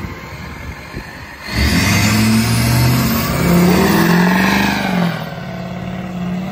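Hummer engine idling, then revved hard about a second and a half in, held high for about three seconds, and dropped back to idle. This is a standing burnout attempt in rear-wheel drive, with the rear tires spinning only briefly.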